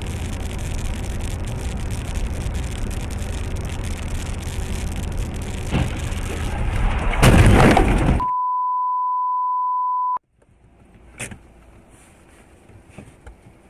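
In-cabin road and engine rumble from a car driving on a highway, broken about seven seconds in by a loud car-crash impact. A steady high beep follows for about two seconds, then near quiet with a single click.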